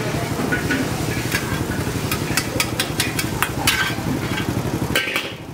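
Wok stir-frying at a hawker stall: a metal ladle and spatula strike the wok in a quick run of sharp clanks over the sizzle of frying, with a steady low rumble underneath.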